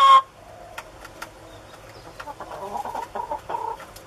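Hens clucking softly while feeding from a plastic bucket feeder's pipe-elbow port, with light sharp taps as their beaks peck inside it. A long loud hen call cuts off right at the start, and the clucking picks up in the second half.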